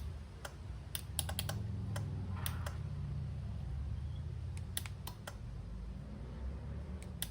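Irregular light clicks and taps, some in quick pairs, as a switch-fitted door or lid is opened and closed by hand with the alarm switched off, over a low steady hum.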